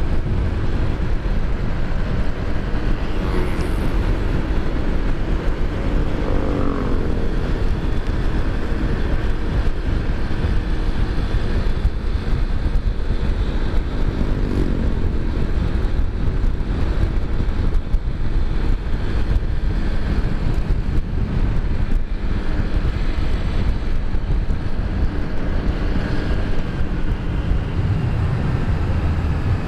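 Motorcycle riding at speed, heard from the rider's helmet camera: a steady rush of wind and road noise over the engine hum. Engine notes waver up and down briefly a few seconds in and again about halfway through.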